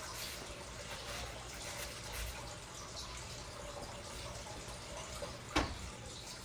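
Cloth rubbing Brasso polish onto a copper fire extinguisher: a faint, wet wiping sound with small scattered ticks, and one sharp click near the end.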